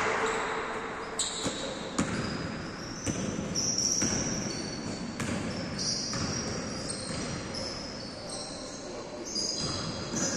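Basketball game on a hard court: the ball bouncing with sharp thuds every second or so, and sneakers squeaking on the floor in short high squeals.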